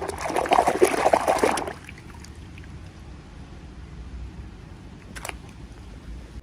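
Crinkling and rustling of packaging being handled and opened, a dense burst of small crackles for the first two seconds, then quieter handling with one click near the end.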